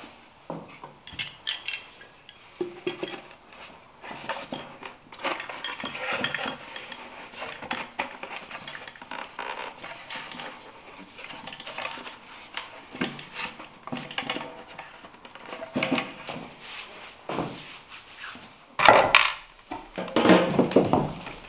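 Irregular knocking and clatter of a wooden plywood box being handled and shifted on a table saw top, with light clinks mixed in and louder clatter near the end.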